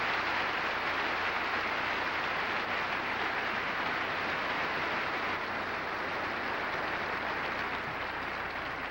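A large audience applauding, a dense, even wash of clapping that eases off slightly near the end.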